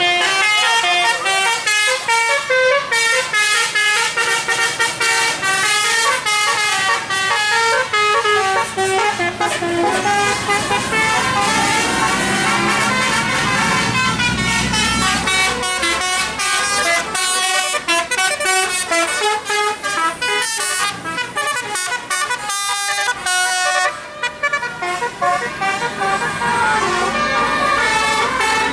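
Basuri 'telolet' multi-tone bus horns playing fast melodic runs, the tones stepping up and down almost without a break, dipping briefly near the end.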